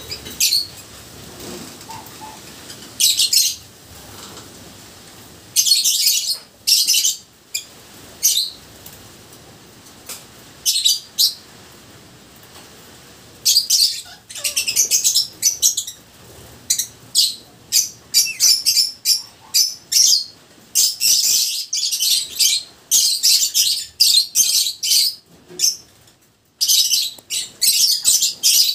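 Lovebirds chattering in short bursts of shrill, high-pitched chirps, many in quick succession with pauses between, as a pair mates with the male mounted on the female.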